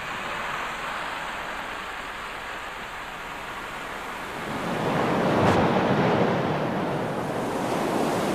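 Steady hiss of heavy cyclone rain, then about four and a half seconds in the louder rush of storm surf surging and breaking over the beach.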